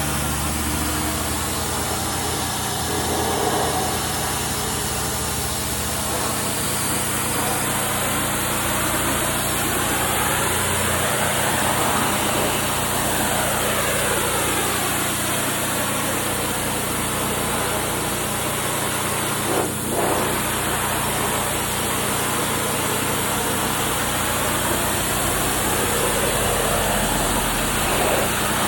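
Gas-engine pressure washer running steadily, the engine humming under the hiss of the high-pressure spray on a wooden fence, with the spray sound shifting as the wand moves.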